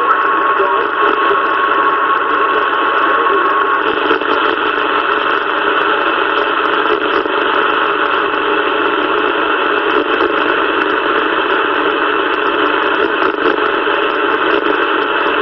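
CB radio receiver hissing with steady static, no station talking. A steady high whistle sits over the hiss and stops about four seconds in.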